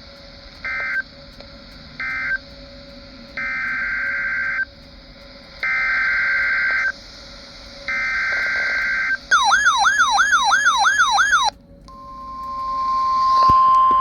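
Weather radio EAS/SAME data tones: two short end-of-message bursts of screechy digital data, then three longer header bursts announcing a new alert. A warbling siren-like tone follows, rising and falling about three times a second for about two seconds. Then, near the end, a steady, loud single-pitch alert tone begins, the 1050 Hz NOAA Weather Radio warning alarm.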